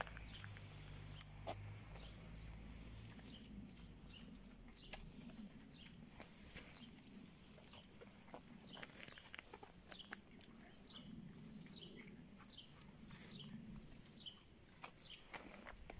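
Faint outdoor quiet with short high chirps repeating every second or so and a few faint clicks. A low hum stops about three seconds in.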